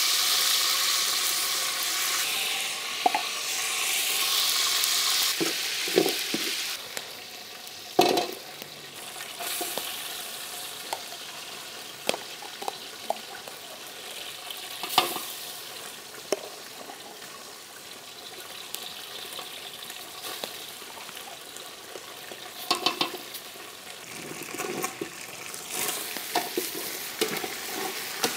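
Food sizzling in a cooking pot, loudest in the first five or six seconds and then dying down, while a utensil stirs it, with scattered clinks and knocks against the pot.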